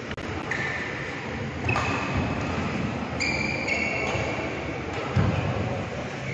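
Badminton play on an indoor court: a racket striking the shuttlecock and several short squeaks of shoes on the court mat, over a steady rumble of hall noise, with a dull thud about five seconds in.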